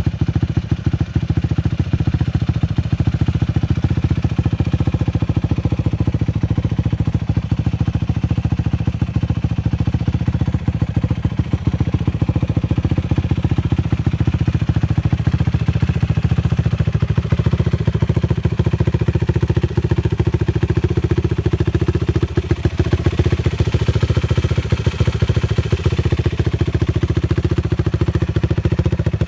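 Yamaha YFZ450 sport quad's single-cylinder four-stroke engine idling steadily.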